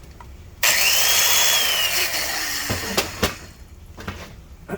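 Electric Sioux valve seat grinder on a cylinder-head valve seat, starting suddenly and grinding for about two seconds. Its motor whine climbs quickly, then sinks as the stone bears on the seat, before it cuts off. A few sharp clicks follow as the tool is handled.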